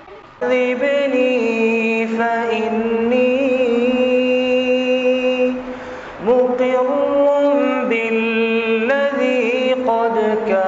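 A voice chanting a manajaat, an Islamic devotional supplication, unaccompanied by instruments, in long held notes that bend slowly in pitch. It comes in about half a second in and breaks briefly a little past halfway.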